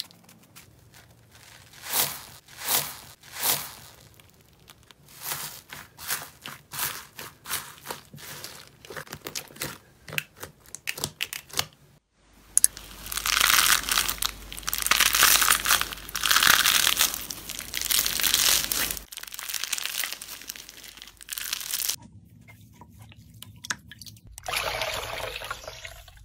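A hand pressing into a bowl of small foam beads makes crunchy crackling strokes, three loud ones and then a run of lighter ones. About twelve seconds in there is dense, loud crackling as fingers squeeze a pile of purple sponge pieces. Near the end there is wet squishing as hands knead a lump in a bowl of liquid.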